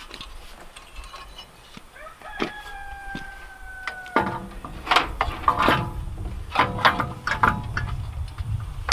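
A rooster crowing, its call ending in a long held note about four seconds in. It is followed by several more short calls and clucks, mixed with a few short knocks.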